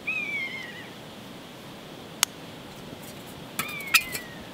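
A lighter being struck to light a wood gas stove: one sharp click about two seconds in and a quick run of louder clicks near the end. Two high, falling animal calls, each about a second long, one at the start and one near the end.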